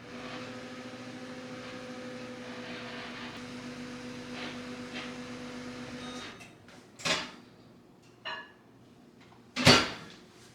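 A small electric household appliance hums steadily and cuts off suddenly about six seconds in. Three sharp knocks or clunks follow, the last the loudest.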